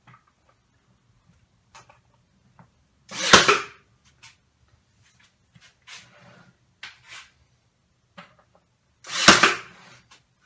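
Nail gun firing twice, about six seconds apart, tacking a glued plywood side panel to the bottom of a box; faint clicks of the wood being handled between the shots.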